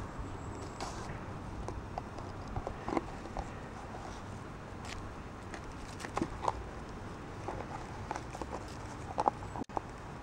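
Irregular light taps and clicks of rough collie puppies mouthing and pushing an empty plastic cream pot about on grass.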